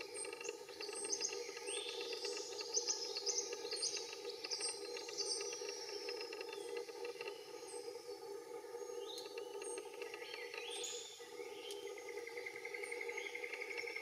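Several small birds calling at once, a mix of chirps, trills and whistles, with a thin high note repeated about once a second. A steady low hum runs underneath.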